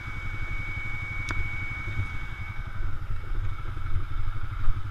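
ATV engine idling steadily, with a steady high-pitched whine that stops about halfway through. A single sharp metal click about a second in as the winch hook is fastened.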